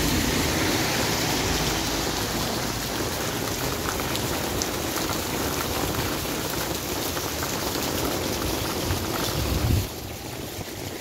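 Steady rain falling on a paved street and pavement, an even hiss of rain with splashing. Near the end there is a brief low rumble, and then the rain sounds somewhat quieter.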